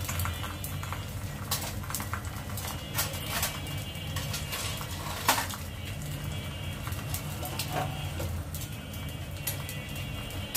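Eggs frying in oil on a cast-iron tawa, with irregular crackles and pops over a steady low hum from the gas burners. A sharper click stands out about five seconds in.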